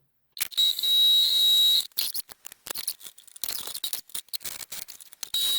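Electric drill drilling a hole through steel plate: it runs steadily with a high whine for about a second, then goes in short stop-start spurts for several seconds as the trigger is pulsed, and runs steadily again near the end.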